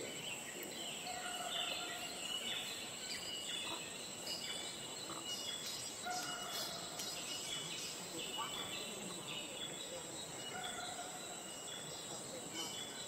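Forest ambience: many short bird chirps and calls over a steady, high insect drone.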